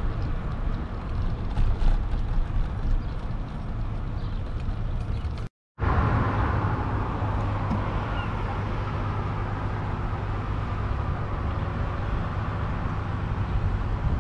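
Road traffic noise at a busy intersection, passing cars with engine and tyre sound, mixed with wind on the microphone. The sound drops out completely for a moment about five and a half seconds in, then carries on steadier.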